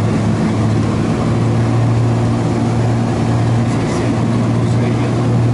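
Steady drone of a light aircraft's engine and propellers heard from inside the cabin in flight: a loud, unchanging low hum with a few higher tones over a rushing haze.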